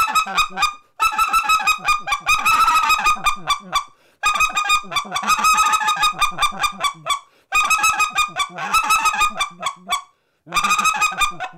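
RedBone specklebelly goose call blown in a machine gun cluck: rapid runs of short, bright squeal notes with no scratch, in about five bursts separated by short pauses. It is a hailing call.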